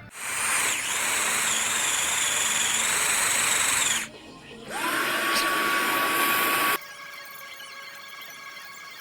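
Electric drill running in two bursts, the first about four seconds long and the second about two, each with a steady high whine once up to speed. It cuts off sharply near the end of the second burst, leaving quiet background music.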